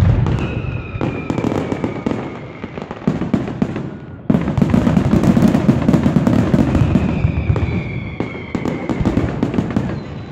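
Fireworks display going off: dense crackling and popping bursts, with a falling whistle twice. About four seconds in, a sudden, louder, heavier barrage of bangs sets in.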